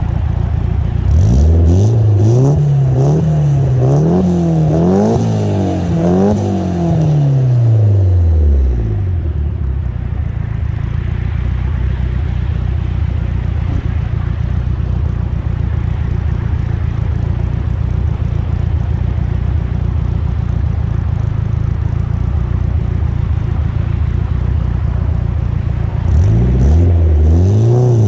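Turbocharged Nissan SX four-cylinder with a GT2871R turbo and BC264 cams, revved in several quick rising-and-falling blips over the first eight seconds or so. It then idles steadily and is blipped again near the end.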